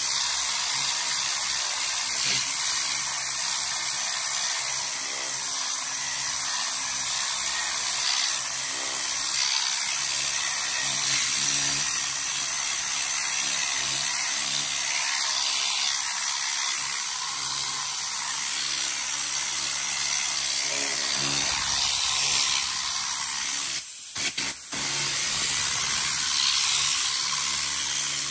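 AC Pro Tornador cleaning tool spraying foaming cleaner with compressed air, a steady loud hiss with a low buzz beneath it. The air cuts out briefly twice near the end.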